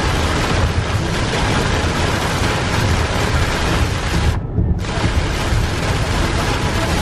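Heavy rain pelting the windshield and roof of a moving car, heard from inside the cabin over a steady low road rumble. The rain hiss cuts out briefly about four and a half seconds in.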